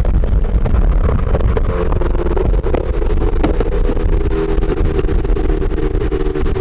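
Car engine and tyre noise at highway speed, heard from inside a moving car, with a steady engine drone that comes up about two seconds in.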